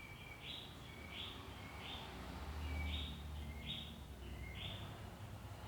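A small animal's high chirping call, repeated about every two-thirds of a second, each call stepping up in pitch, over a low steady hum.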